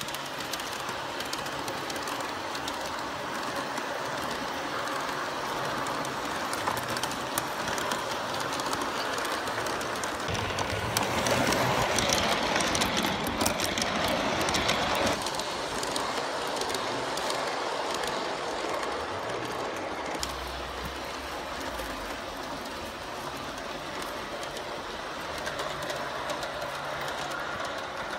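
Large-scale garden-railway model train, a small tank locomotive with coaches, rolling along the track with a steady running noise and light clicking of the wheels over the rail joints. It is loudest about 11 to 15 seconds in, as the coaches pass close by.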